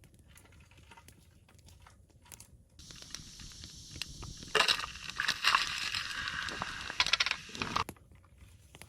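Garlic frying: sizzling and crackling that starts about three seconds in and stops near the end, with a few light clicks before it.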